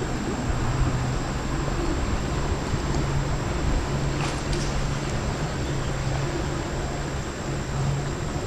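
Steady low hum of a boat motor under an even wash of wind and water noise.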